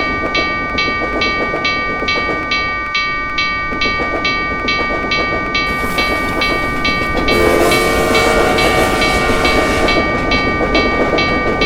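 Railroad crossing bell clanging about three strokes a second over the rumble of a passing train. The train noise grows louder about six seconds in, and a train horn sounds for about two and a half seconds.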